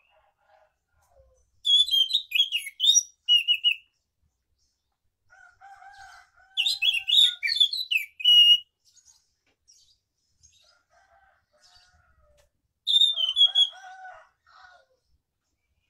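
Caged anis macan thrush singing three bursts of rapid, varied high-pitched phrases: about two seconds in, from about six to eight seconds, and near the end. Softer, lower calls sound between and under the later bursts.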